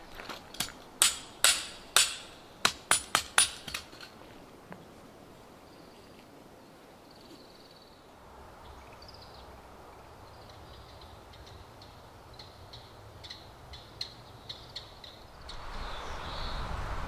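A run of about eight sharp knocks in the first four seconds, some with a slight metallic ring. Faint short high chirps follow, and a rush of wind rises near the end.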